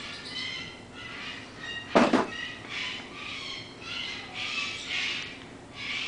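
A run of short, high-pitched chirping squeaks, several a second, with one sharp knock about two seconds in.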